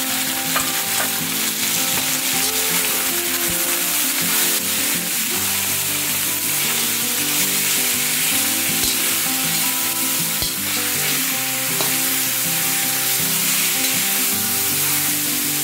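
Chopped raw pork sizzling in hot oil in a wok, a steady loud frying hiss, stirred with a metal spatula that clicks against the pan a few times.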